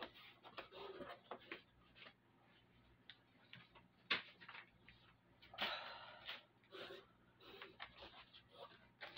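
Faint, scattered knocks, clicks and short rustles of someone moving about and handling things, with a slightly louder knock about four seconds in and a brief rustle around six seconds.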